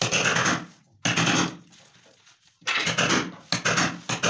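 Hammer striking a wood chisel, chopping a recess into a laminated wooden board. Two blows come first, then after a pause of about a second a quick run of blows about twice a second.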